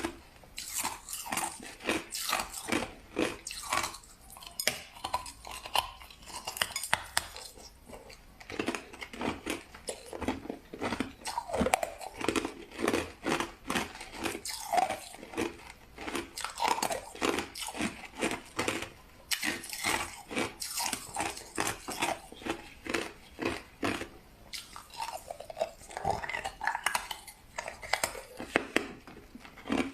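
Close-miked chewing of crushed ice: rapid runs of crisp crunches as the ice is bitten and ground between the teeth, with a few short pauses.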